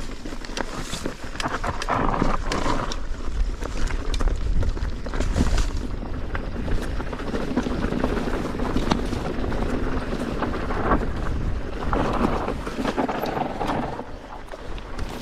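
Mountain bike rolling down a rocky trail: tyres running over loose rocks with many small clicks and rattles from the bike, and wind on the microphone.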